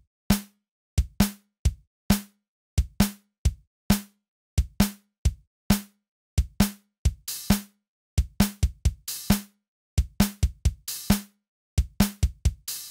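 Electronic intro music: a sparse drum-machine beat of short, sharply cut-off kick and snare hits in groups of two or three, with silence between them.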